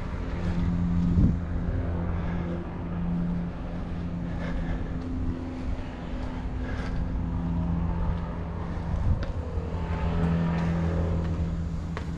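A steady mechanical hum at a constant pitch, like a running motor, with a few faint knocks over it.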